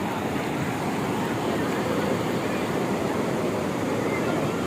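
Steady wash of surf breaking on a sea beach, with faint distant voices.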